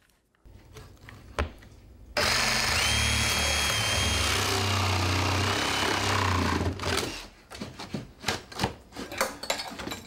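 Cordless reciprocating saw cutting through the nails that hold a wooden door frame in its opening, running for about four and a half seconds from about two seconds in. Then a string of knocks and rattles as the freed frame is worked loose.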